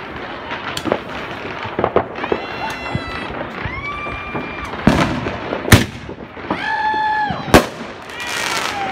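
Fireworks going off, with about five sharp bangs, the loudest two a little before and after the middle. Several drawn-out, held high tones sound between the bangs.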